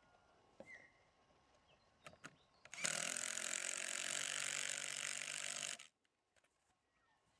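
Portable angle grinder run for about three seconds, cutting through the horse-fence rail at its end, then stopping abruptly. A few light clicks of handling come before it.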